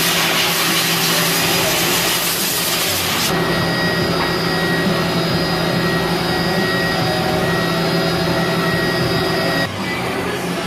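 Mazak Variaxis 500 CNC vertical mill running with its spindle at 10,000 rpm: a steady machine whine of several tones over a loud hiss. The hiss drops away about three seconds in. The level dips briefly near the end.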